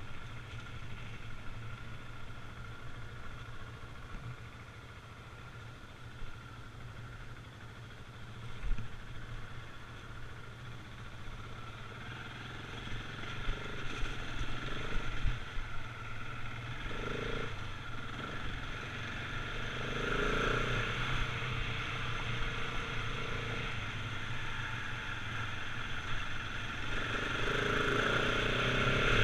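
Husqvarna 701 Enduro's single-cylinder engine running at low, steady speed on a loose gravel track, with a few knocks along the way. The engine grows louder near the end.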